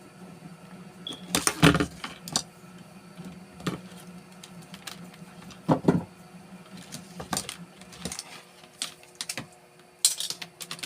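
Handling noises: scattered clicks, knocks and rustles as a plastic baby-oil bottle, a rubber hose and a steel cable are picked up and worked by hand, over a steady low hum.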